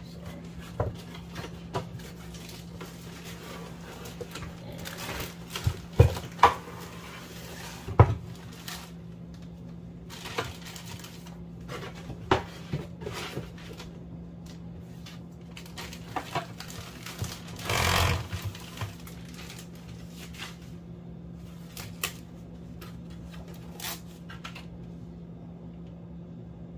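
Cardboard box and a plastic-wrapped part being handled during an unboxing: scattered taps, knocks and clicks, with a longer scraping rustle about eighteen seconds in. A steady low hum sits underneath.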